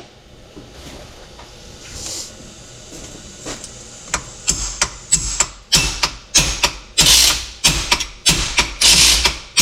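Faint steady hiss, then a hand ratchet wrench clicking in strokes, starting about four seconds in and settling into roughly two sharp clicks a second as a gear is worked off a G56 transmission main shaft.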